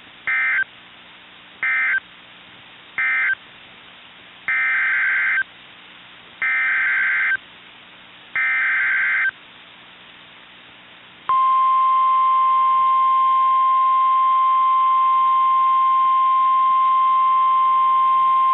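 NOAA Weather Radio Emergency Alert System signalling. Three short screeching SAME data bursts come first, the end-of-message code closing the previous warning. Three longer bursts follow, the SAME header of the next tornado warning. About eleven seconds in, the steady 1050 Hz warning alarm tone starts and holds.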